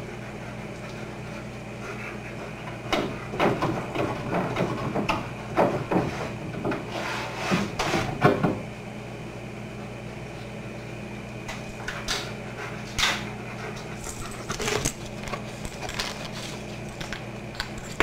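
Irregular wooden knocks and clatters, a busy run about 3 to 8 seconds in and a sparser one around 12 to 15 seconds: German Shepherd dogs working at a wooden pull-out counter board by an open refrigerator.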